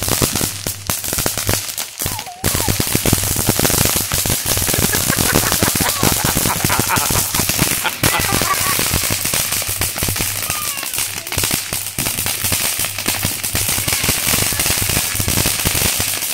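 Consumer firework crackling: scattered pops at first, then a dense, continuous rapid crackle of small bangs from about two and a half seconds in.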